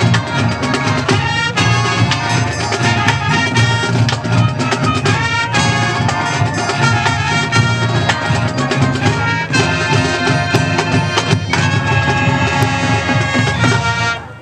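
Marching band playing, with brass and drums over a front ensemble of keyboards, building to a final chord that cuts off sharply near the end.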